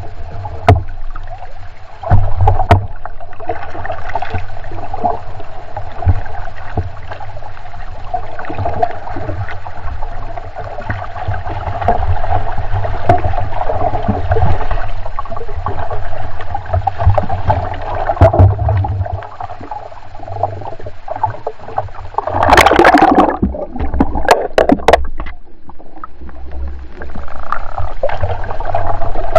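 Water rushing and splashing against the hull of a small Sabot sailboat heeled over under sail, with low rumbling wind buffeting and knocks on the microphone. A loud burst of splashing comes about 22 seconds in.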